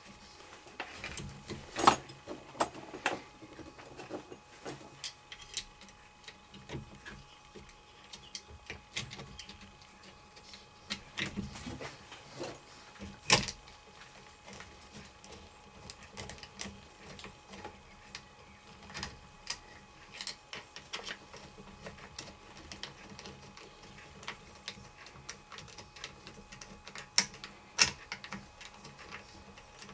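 Irregular light metallic clicks and taps as the small solenoid fixing bolts are threaded back in by hand on a Lucas M79 starter motor, with a few sharper clicks.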